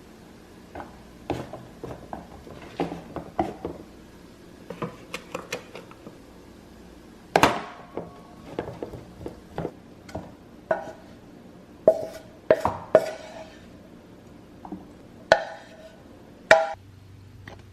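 Dishes and utensils clinking and knocking in scattered single strikes, a few of them ringing briefly.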